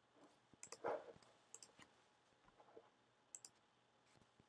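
A few faint computer mouse clicks, spaced a second or two apart, against near silence.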